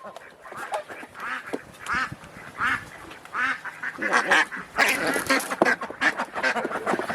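Several domestic ducks quacking in a run of short calls. The quacking grows busier and louder from about four seconds in.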